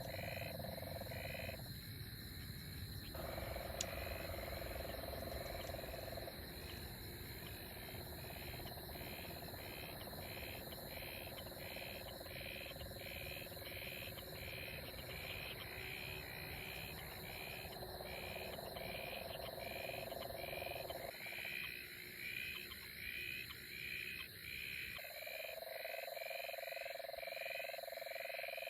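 Frogs calling in a night chorus: one call repeats about twice a second, over a steady high-pitched drone. A low rumble under them drops away about three-quarters of the way through.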